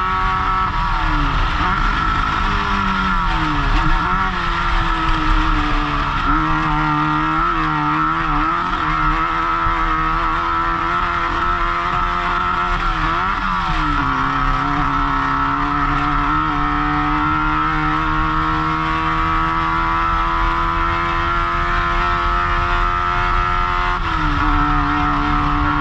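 Off-road race car engine running hard at steady high revs, its pitch dipping and recovering briefly three times, with constant low rumble from the ride, heard from the driver's helmet.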